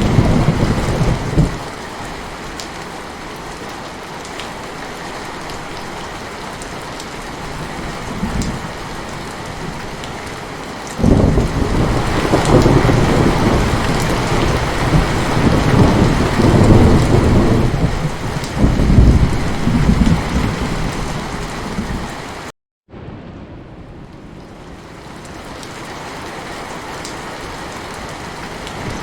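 Heavy rain falling steadily, with thunder: a rumble fading out in the first second or two, and a long rolling rumble of about ten seconds beginning about a third of the way in. The sound cuts out for an instant about three-quarters of the way through, after which the rain goes on a little softer.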